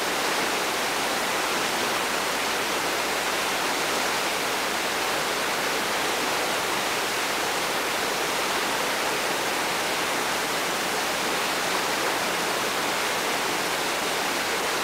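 Whitewater of a long Class 5 rapid rushing steadily, an even, unbroken wash of churning water.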